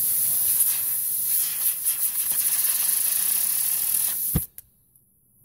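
Compressed-air blow gun hissing steadily as its jet blasts a fidget spinner, cutting off suddenly with a knock about four seconds in.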